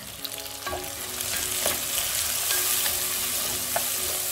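Onions and freshly added tomato slices sizzling in hot oil in a nonstick pan, the sizzle growing louder about a second in. A wooden spatula stirs through the pan, giving a few short knocks and scrapes.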